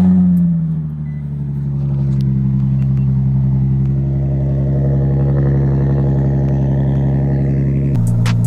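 Car engine just started: its revs flare briefly as it catches and drop within about a second, then it runs at a steady idle.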